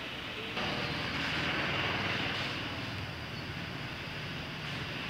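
Steady mechanical rushing noise with a low hum underneath, growing louder about half a second in.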